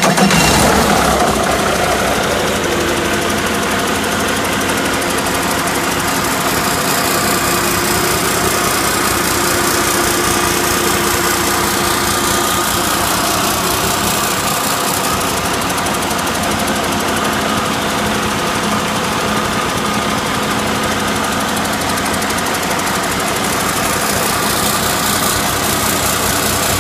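2016 Cummins ISX15 inline-six diesel engine idling steadily just after firing up, a little louder for the first couple of seconds before settling. The seller lists it as good running.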